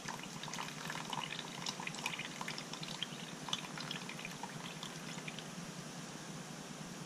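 Dirty rinse water dripping and trickling off a clump of steel pin tumbling media held by a magnet under a plastic bowl, falling back into a tub of water. Many small drips in quick succession, thinning out over the last couple of seconds.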